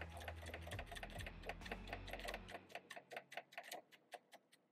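Baby Lock Accomplish straight-stitch sewing machine stitching through eight layers of leather: a fast, even run of needle clicks, about seven a second, over a low motor hum. About halfway in the hum stops and the clicks slow, thin out and fade away.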